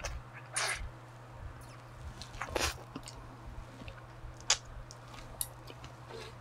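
A person chewing a mouthful of rice and soy-marinated crab meat close to a clip-on microphone, with a few sharp wet mouth clicks every second or two.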